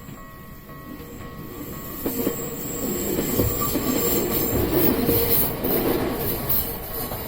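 A Bessho Line electric train runs through a level crossing, rising from about two seconds in, loudest in the middle and easing off near the end. The crossing's warning bell keeps ringing faintly underneath.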